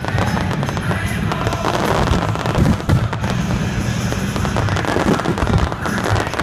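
Aerial fireworks display in a dense, unbroken barrage of rapid cracks and bangs, with music playing underneath.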